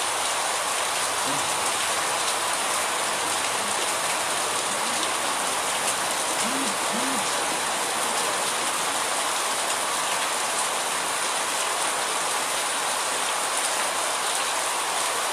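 Steady rain falling on tiled roofs and a paved street, an even hiss.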